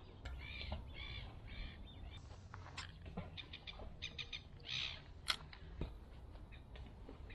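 A bird calls three times in quick succession near the start, followed by scattered sharp clicks and taps and a few shorter calls.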